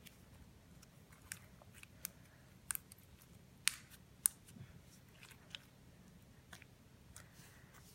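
Clear slime being handled, giving irregular sharp clicks and pops, the loudest two a little under four seconds in.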